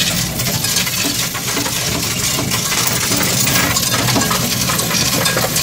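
A dense, unbroken clatter of pennies as handfuls are swept across the metal tray and into a coin-counting kiosk.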